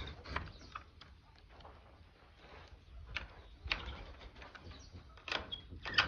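Wooden-framed wire-mesh aviary door and its fittings being handled: a series of irregular knocks and clicks, the sharpest near the end.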